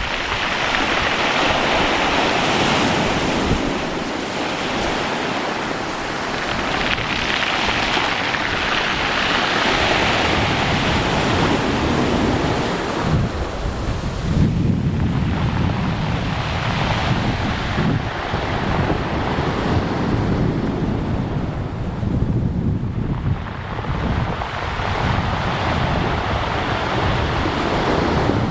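Barents Sea waves washing and surging, with strong wind buffeting the microphone. The wash swells and fades every several seconds, and the low wind rumble grows heavier about halfway through.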